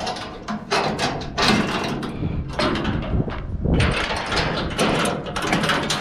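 Galvanized steel U-Haul trailer ramp being unlatched and lowered: a run of irregular metal rattles, clanks and scrapes.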